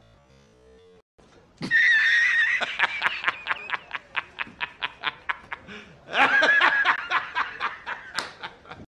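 Hard, high-pitched laughter: a drawn-out opening whoop, then a rapid run of ha-ha-ha bursts, about four or five a second. A second fit starts about six seconds in and cuts off suddenly near the end.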